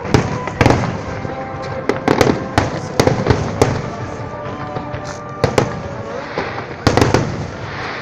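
Aerial fireworks shells bursting in a rapid, irregular string of loud bangs, about a dozen in eight seconds, some in close pairs, each trailing off in a rolling echo.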